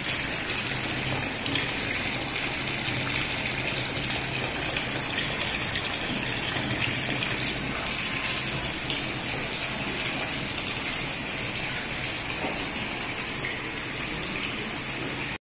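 Steady gush of water pouring into a concrete fish tank, with a faint low hum underneath; it stops abruptly at the very end.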